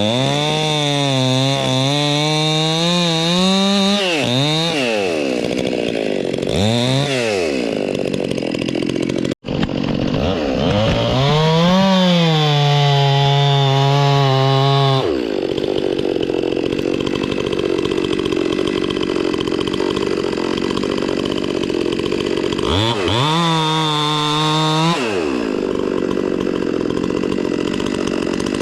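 Electric chainsaw cutting in several bursts on the trigger: the motor whine climbs in pitch, wavers as the chain bites into the wood and falls away when the trigger is released. There are two short blips in between and an abrupt break in the sound about nine seconds in.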